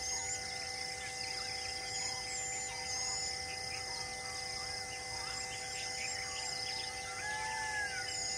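Forest ambience: birds chirping and whistling in short repeated calls, with one longer gliding whistle near the end, over a steady high insect drone.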